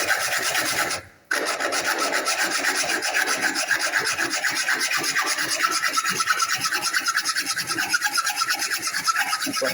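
Hand saw cutting wood in rapid back-and-forth strokes, with a brief stop about a second in before the sawing carries on.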